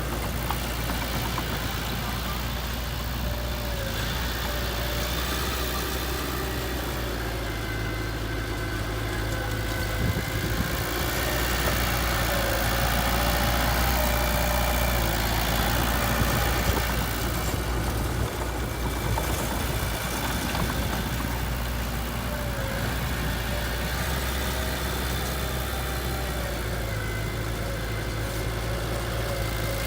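Heavy diesel engine of earthmoving machinery running steadily, getting louder for a few seconds around the middle.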